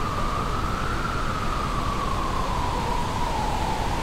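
Wind blowing: a steady hiss with a single whistling tone that drifts slowly up and then back down.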